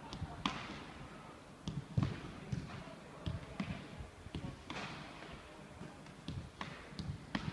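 A football being struck and caught in a goalkeeper handling drill: about a dozen sharp knocks at uneven spacing, the loudest about two seconds in.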